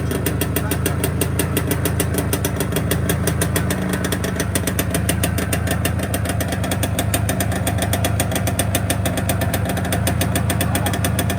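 Izh Planeta Sport's single-cylinder two-stroke engine running steadily at a low, even speed.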